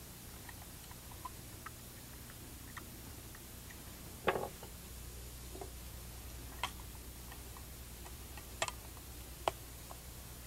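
Scattered light clicks and taps of rifle parts being handled as a .223 semi-automatic rifle's wooden stock is swapped for a plastic one, with a sharper knock about four seconds in and a few more clicks later, over a faint low hum.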